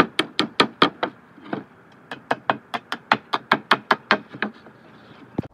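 Claw hammer striking nails in old barn wood boards in quick succession, about four to five blows a second, to knock the nails out. The blows pause for about a second after the first second, then resume, with one last knock near the end.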